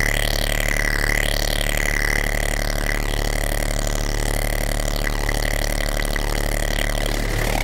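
Modular synthesizer playing a dense, buzzing low drone with a steady high tone held above it.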